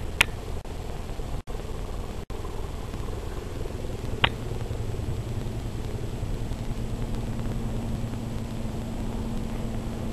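Steady low rumble of distant engines, with a low steady hum joining about halfway through. Two sharp clicks stand out, one right at the start and one about four seconds in.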